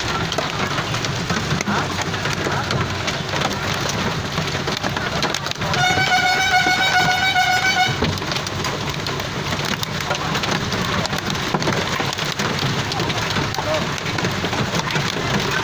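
Heavy rain mixed with hail pouring down steadily. About six seconds in, a high, slightly wavering tone sounds for about two seconds.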